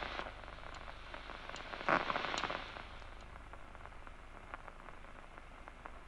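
Faint crackling static with scattered clicks, a brief louder burst of hiss about two seconds in, over a steady low hum.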